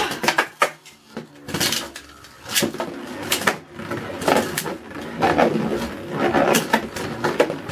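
Two Beyblade spinning tops launched with a ripcord into a plastic stadium, then spinning and clashing: a rasp at the launch, then sharp clacks about once a second as they hit each other and the stadium wall, over a steady whir.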